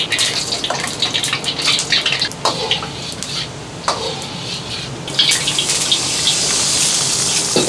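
Wok station at work: a metal ladle clinks repeatedly against a carbon-steel wok over a steady hiss of burner and sizzling oil. The hiss grows louder about five seconds in as the wok is tipped and drained.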